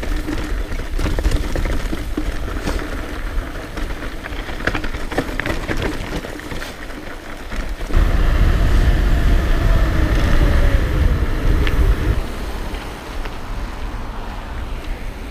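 Trek Remedy 9.7 full-suspension mountain bike riding downhill on a rough trail: tyres and frame rattling over stones, with wind rushing over the camera microphone. About eight seconds in, the wind rush gets much louder for a few seconds as the bike picks up speed.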